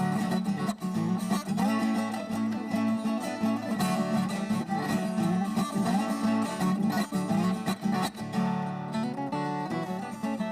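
Background music: acoustic guitar being plucked and strummed.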